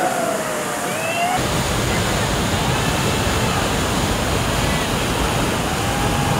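Loud, steady rush of a large river rapid's whitewater. The rush turns deeper and fuller about a second and a half in, and faint shouting voices rise over it in the first second and again near the end.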